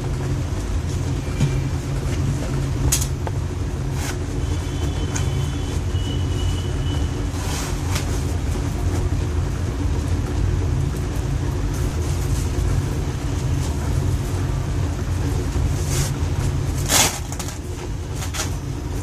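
Steady low hum of a running electric fan motor, with short rustles and clicks of a padded slimming belt being handled and fastened around the waist, the loudest rustle near the end.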